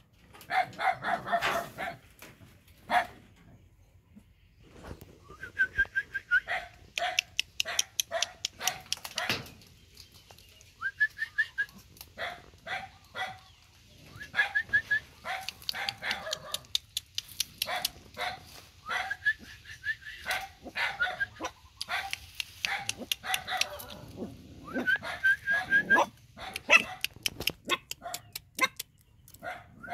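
Young puppies yelping and whining over and over, with short barks and several high-pitched whines each held for about half a second.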